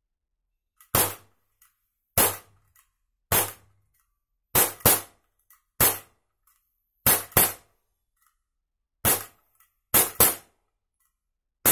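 ISSC M22 4.5 mm CO2 blowback BB pistol firing about eleven shots at an uneven pace, some in quick pairs. Each shot is a sharp, snappy crack with the snap of the blowback slide.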